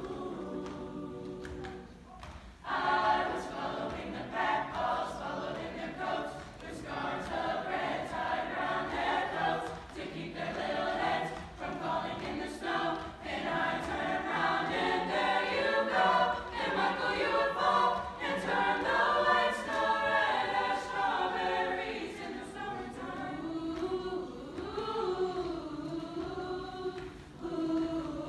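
Mixed high school choir singing in harmony without accompaniment, soft at first, swelling to full voice about three seconds in and easing to a softer, lower passage near the end.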